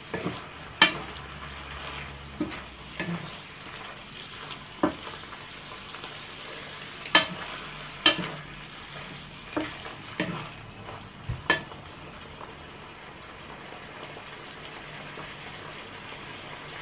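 Chicken pieces sizzling steadily as they fry in a pan, stirred with a wooden spatula that knocks against the pan in scattered sharp clicks, fewer of them in the last few seconds.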